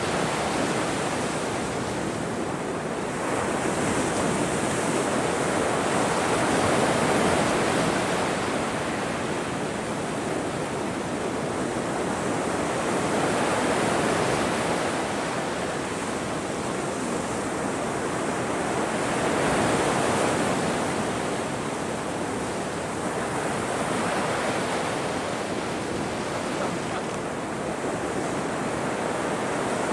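Ocean surf: a continuous rush of breaking waves that swells and eases every few seconds.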